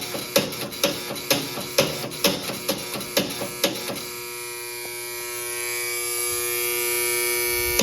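Fire alarm signal sounding under test on a 1965 Edwards 1303 panel: even pulsing strokes about two a second over a steady hum, then about four seconds in a continuous buzzing tone that grows slightly louder and cuts off abruptly as the pulsing starts again near the end.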